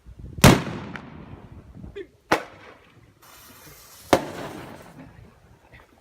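Three loud firework bangs about two seconds apart, each echoing away. A hiss runs for about a second just before the third bang.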